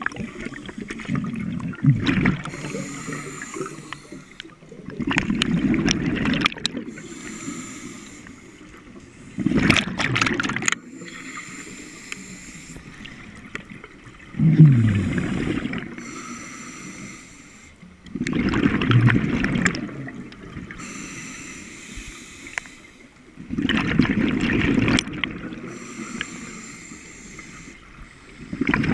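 Scuba diver breathing through a regulator underwater, each exhalation a bubbling burst of a second or so, repeating about every four to five seconds.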